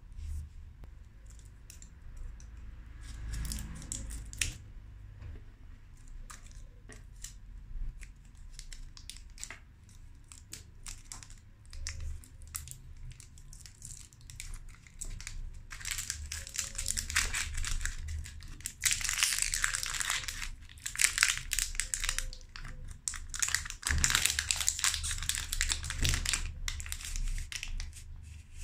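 Foil and printed candy-bar wrapper crinkling and tearing as a white chocolate bar is unwrapped by hand. There are sparse rustles and clicks at first, then loud, continuous crinkling from a little past halfway.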